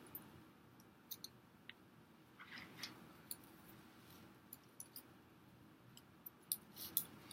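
Wooden popsicle sticks clicking and scraping against each other as they are bent and woven together under tension: faint, scattered clicks with a short rustle around the middle and two sharper clicks near the end.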